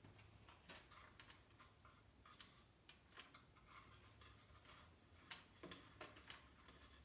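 Faint, irregular light clicks and ticks, about two or three a second, from a spark plug socket and wrench being handled on a weed eater during a spark plug change.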